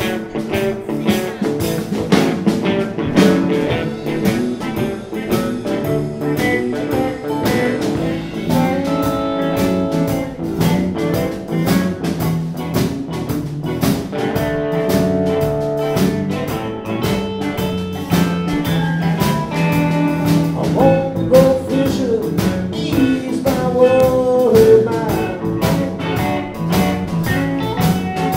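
Live blues band playing: electric guitars over bass guitar and a drum kit, with a steady beat.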